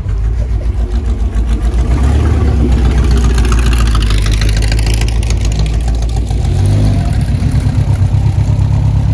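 A car engine running loud and close with a deep rumble, its revs shifting, rising about two-thirds of the way through.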